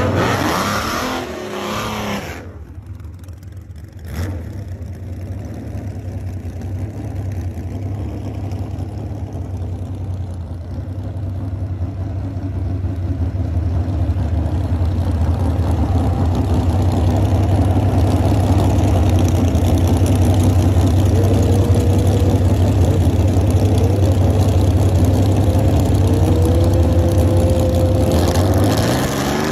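Gasser drag car's engine: a brief loud burst of engine noise at the start, then a steady deep idle that grows louder, with the revs rising near the end as it stages at the starting line.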